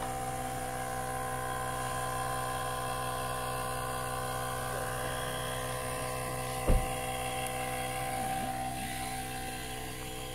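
Small electric air pump running steadily with a whine, inflating an air mattress. A single sharp thump about two-thirds of the way through.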